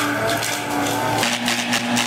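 A heavy machine's engine running. About a second in, the sound changes abruptly to a steady lower note with a fast rhythmic pulsing.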